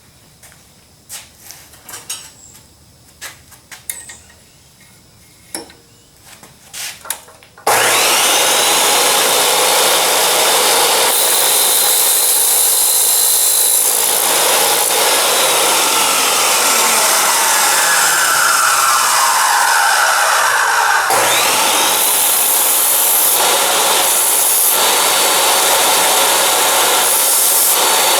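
Light clicks and knocks of a stainless steel rod being set in a wooden fixture, then an abrasive chop saw starts about 8 seconds in and grinds steel loudly and steadily. The motor's whine rises as it spins up, sinks gradually for several seconds as the wheel works the rod, and rises again about 21 seconds in.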